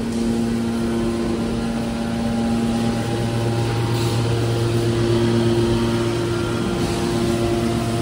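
Hydraulic scrap-metal baler's power unit, electric motor and hydraulic pump, running with a steady humming drone; the pitch of the hum shifts about three seconds in.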